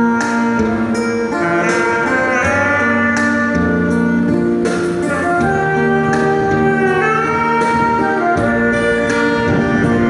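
Instrumental trot music: a wind instrument plays the melody in long held notes over a backing track with a steady beat.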